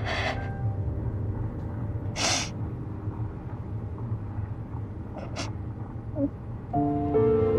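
A woman crying: a few sharp sniffs and sobbing breaths, a second or two apart, over a low steady hum. Music comes back in near the end.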